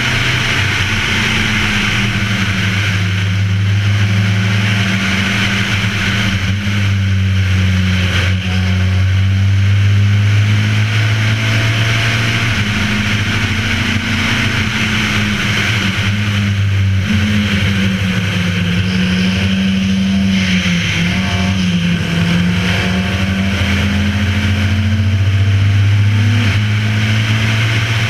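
Race car engine running hard at track speed, heard from a camera mounted on the car, over a steady rush of wind and tyre noise. The engine note holds mostly steady, dipping and climbing back a few times as the car lifts off or changes gear.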